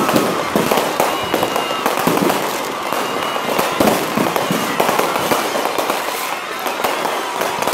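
Aerial fireworks going off in quick succession: a dense run of bangs and crackling bursts, with a few short whistles among them.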